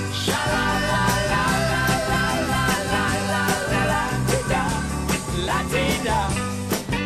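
Rock song playing, with a sung vocal line over drums, bass and guitar.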